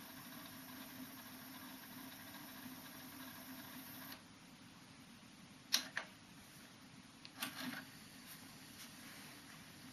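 harman/kardon CD491 cassette deck's transport running faintly, then stopping about four seconds in, followed by sharp mechanical clicks and clunks of the transport being switched, two near the middle and a cluster a couple of seconds later.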